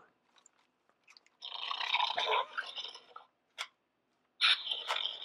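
RealFX Baby Blue animatronic velociraptor puppet playing its raptor sound effects, in two bursts: one about a second and a half in and another near the end, with a single click between.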